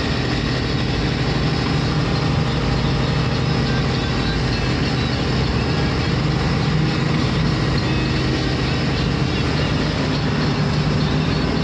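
A vehicle engine running steadily with a low hum, over a constant hiss of noise.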